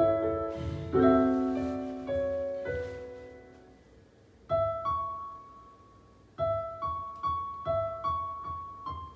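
Solo piano playing an instrumental interlude: a few struck chords that ring and die away, then a soft repeated figure of notes picking up a steady pulse of about two notes a second.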